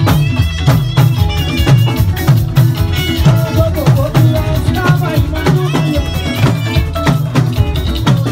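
Live band music, dominated by drums and other percussion beating a busy rhythm, with a melodic line over it.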